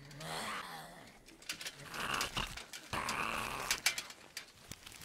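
Zombie growling: three guttural, rough growls about a second apart, with a few light clicks between them.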